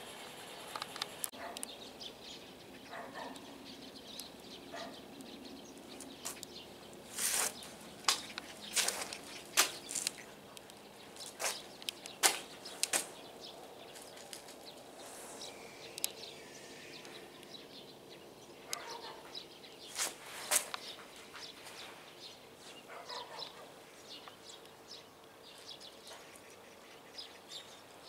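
Outdoor ambience with small birds chirping off and on, and a scatter of short, sharp clicks and taps, thickest in the middle of the stretch.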